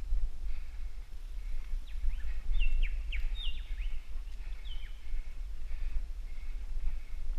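Mountain bike rolling down a dirt singletrack, with a steady low rumble from the tyres and wind on the bike-mounted microphone. Birds call over it, short calls that sweep up and down in pitch, clustered from about two to five seconds in.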